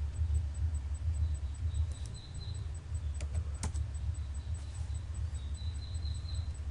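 Steady low hum with a few sharp computer-mouse clicks, the loudest about three and a half seconds in.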